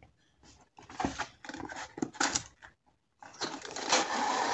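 A cardboard product box handled on a wooden table: a few short taps and scuffs, then a little over three seconds in a steady rubbing scrape of cardboard as the white inner box is slid out of its printed sleeve.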